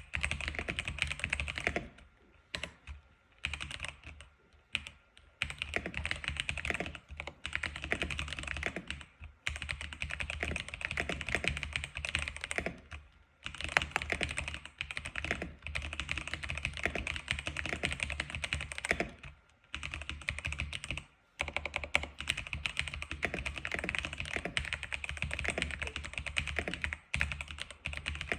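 Steady typing on an X87 keyboard: rapid runs of keystroke clicks with a few brief pauses.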